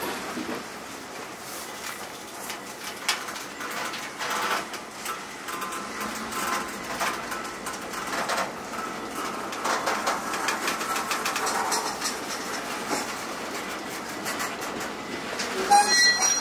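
Covered hopper cars of a freight train rolling past, their steel wheels clicking and knocking on the rails. A few short high-pitched tones come near the end.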